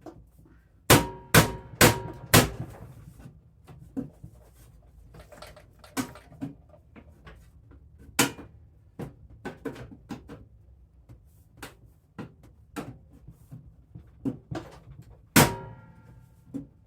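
Sharp metallic clangs and knocks from a snowblower's sheet-metal belly pan being fitted back into place. Four loud ringing clangs come in quick succession about a second in, lighter knocks follow, and another loud ringing clang comes near the end.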